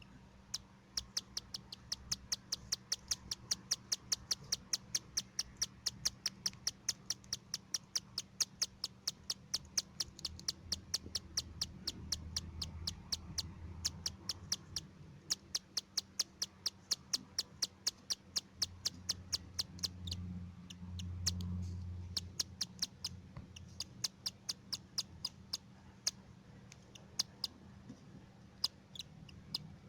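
Cockatiel chicks giving short, sharp, high-pitched calls over and over, about four a second, the insistent call of chicks begging for food. The calls thin out near the end, over a low steady hum.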